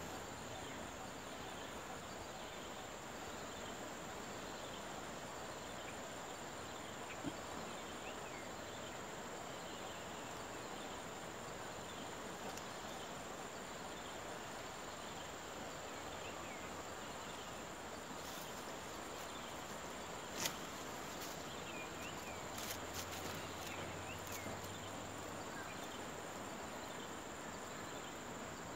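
Steady insect chorus: a continuous high-pitched drone with an even hiss under it. A few faint clicks come about two-thirds of the way through.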